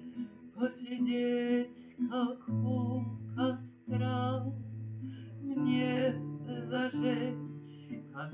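Music: a Russian romance, a slow melody sung with vibrato over plucked guitar and steady held bass notes.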